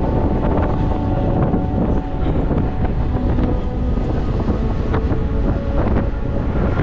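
Wind buffeting the microphone over the steady rumble and clatter of a moving freight train, heard from an open freight wagon, with a few thin squealing tones above the noise.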